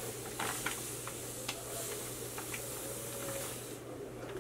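Sand pouring into a glass aquarium tank: a steady hiss of running grains with a few light ticks, stopping shortly before the end.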